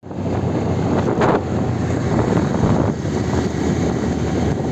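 Wind rushing over the microphone over a two-wheeler's running engine, riding at about 40 to 45 km/h, with a brief louder rush about a second in.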